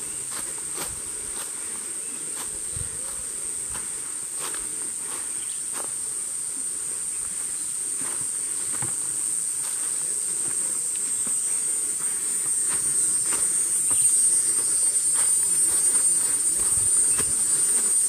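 A steady high-pitched insect drone that grows louder through the second half, with irregular crunching footsteps on dry leaf litter.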